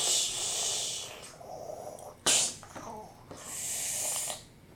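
A child making hissing, spitting sound effects with his mouth in three short bursts, like a sneeze or a "pssh".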